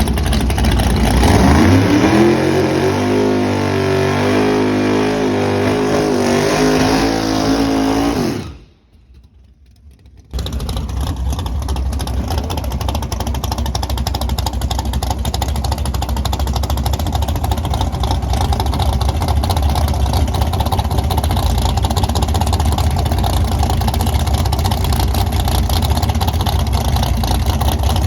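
Drag-racing vehicle's engine at full throttle, its pitch climbing and then stepping through gear changes for about eight seconds. After a short break, an engine runs with a steady drone and a lot of rushing noise.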